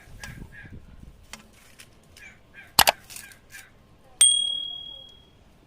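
Faint repeated chirps at the start and a sharp click, then about four seconds in a metal kitchen vessel is struck once and rings with a clear high tone that fades over about a second.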